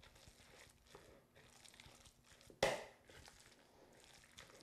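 Faint, irregular squishing of a wet ground-chicken meatloaf mixture being mixed in a bowl, with one sharp knock about two and a half seconds in.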